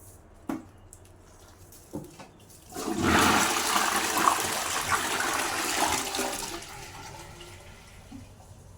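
Toilet flushing: two short clicks, then about three and a half seconds of loud rushing water that fades away over the next second or so.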